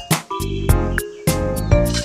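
Background music: pitched melody notes with sharp percussive beats.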